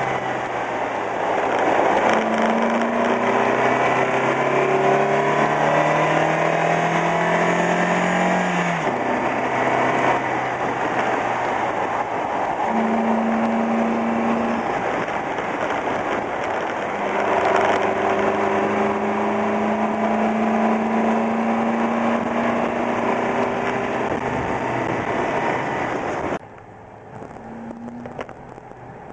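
Car engine pulling under throttle over a heavy rush of wind and tyre noise. Its pitch climbs for several seconds and drops sharply about nine seconds in, then it runs at a mostly steady pitch. Near the end the sound cuts abruptly to a quieter car cabin.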